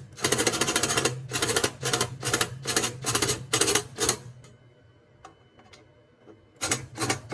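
Short bursts of rapid mechanical clatter, about eight in the first four seconds and two more near the end, from a tool driving the fasteners during a furnace inducer motor replacement.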